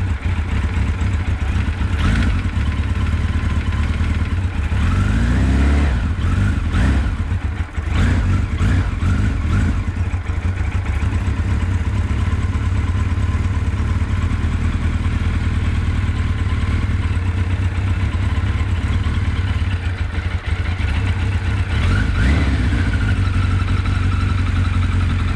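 1983 Kawasaki GPZ 1100's inline-four engine running on a cold start. It idles steadily, with several short revs in the first ten seconds and another about twenty-two seconds in.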